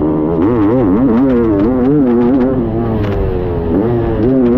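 1989 Kawasaki KX500's 500 cc single-cylinder two-stroke engine on the throttle around a motocross track, its note rising and falling again and again as the rider works the throttle, then held steadier near the end.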